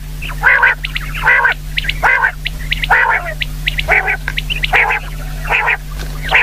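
Common quail calling over and over: a short call repeated about every 0.8 seconds, with faint high ticks between calls and a steady low hum underneath.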